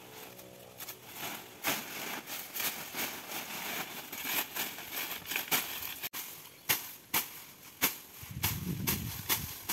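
A bolo machete cutting and slashing through dry banana leaves and grass, with leaves rustling: an irregular run of sharp cracks and swishes, two or three a second at times. A brief low rumble about eight seconds in.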